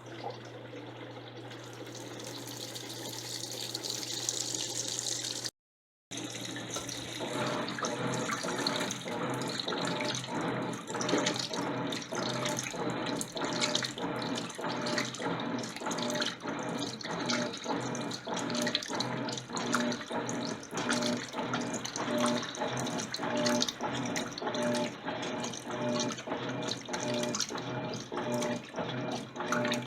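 Electrolux LTC10 washing machine mid-cycle: water rushing in over a steady hum at first, then, after a brief break, water churning in a regular back-and-forth rhythm as the machine agitates.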